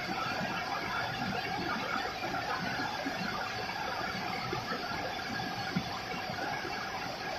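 Steady rain falling, an even hiss with a faint steady tone running through it.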